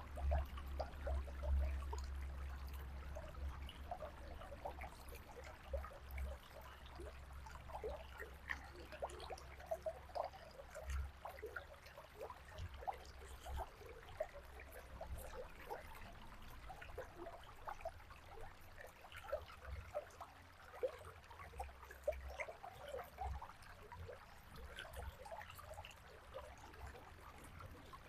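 River water flowing, with a steady faint wash and a dense scatter of small irregular splashes. A low rumble sits under it, strongest at the start and coming and going after.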